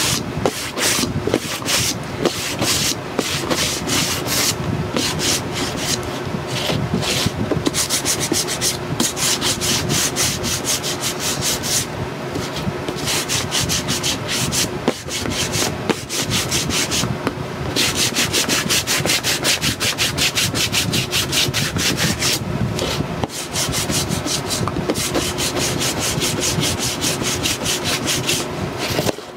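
A hand sanding block with a fresh sanding sheet rubbing in quick, repeated strokes over a painted chipboard box lid, with a few short pauses. It is sanding back antiquing cream to distress the finish.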